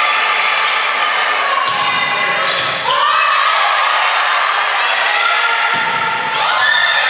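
Indoor volleyball match in a gym: voices calling out over one another, with a few sharp smacks of the volleyball being hit, a couple of seconds in and again near the end.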